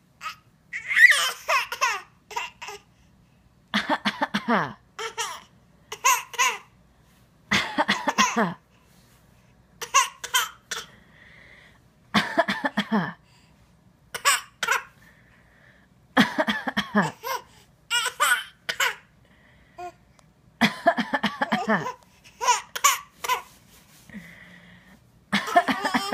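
A young child giving mock coughs and giggling, in short repeated bursts every second or two.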